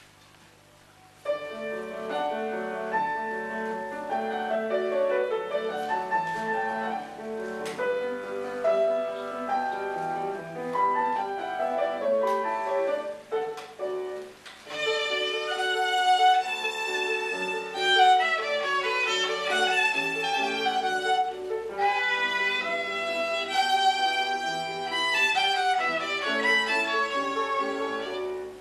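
A grand piano starts an introduction about a second in, and a violin joins about halfway through; the two then play a classical piece together.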